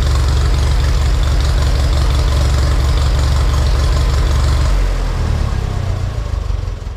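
Ferguson TED20 tractor's four-cylinder engine running steadily while it drives the saw bench through the PTO. About five seconds in the engine is shut down, and the sound dies away over the next few seconds as the circular saw blade runs down.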